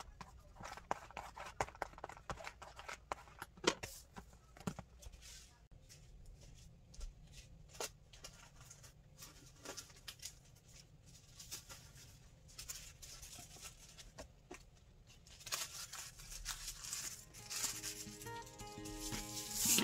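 Hands handling paper, stickers and a cardboard box: scattered soft rustles, taps and clicks. Music with held notes comes in near the end.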